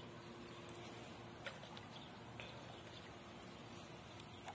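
Quiet waterside ambience: a steady faint hiss with a few soft, brief clicks, about one and a half and two and a half seconds in and again near the end.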